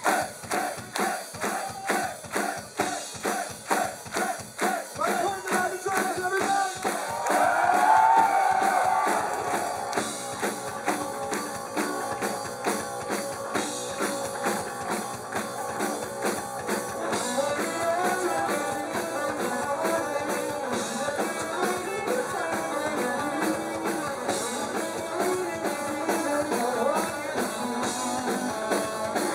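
Live rock band: a steady drum beat with hand claps in time and voices singing over it. About ten seconds in the full band comes in, with guitar and drums playing.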